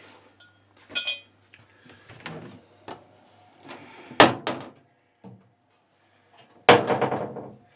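A heavy security bar being taken off a boat's door and the door opened: scattered clicks and knocks, a sharp loud knock about four seconds in, and a longer rattle near the end.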